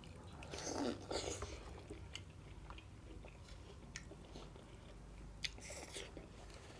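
A person biting and chewing a momo close to the microphone, with wet mouth sounds; louder bursts about a second in and again near the end, and a few small clicks between.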